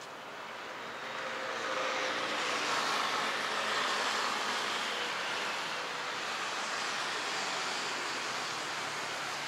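Road traffic on a multi-lane city street, a steady rush of tyres and engines that swells about a second and a half in as vehicles pass, then holds.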